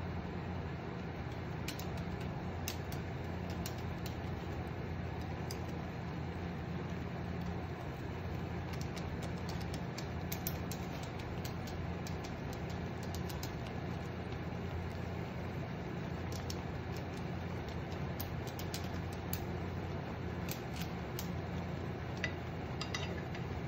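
Wooden chopsticks clicking and scraping lightly against a frying pan now and then while loosening a block of instant noodles in water, over a steady low hum.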